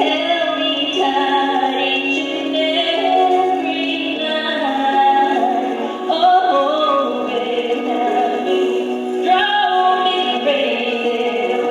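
Woman singing a slow country song with long held notes, played back from an old soundcheck recording; the sound is thin, with little above the midrange.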